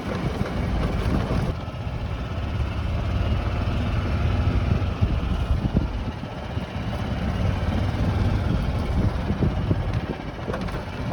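Vehicle driving along, a steady low rumble of engine and road noise.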